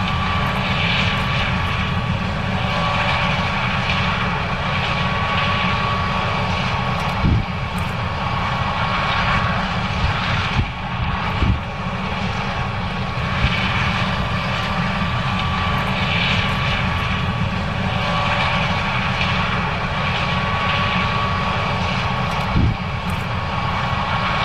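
John Deere S770 combine running steadily while harvesting corn: a deep, even engine drone with a thin steady whine above it and a hiss that swells and fades. Three dull knocks come through, at about seven, eleven and twenty-two seconds in.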